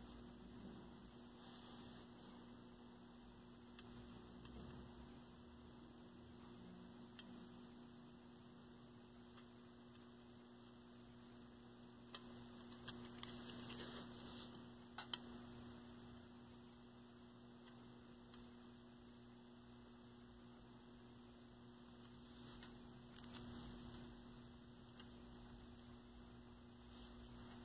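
Near silence: a faint steady electrical mains hum, with a few faint small ticks around the middle and again near the end.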